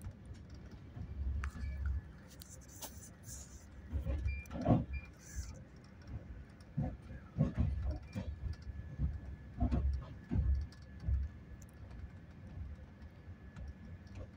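Inside a moving Indian Railways passenger coach of the Sadbhavna Express: a low running rumble with irregular clanks and rattles, the loudest knock about five seconds in.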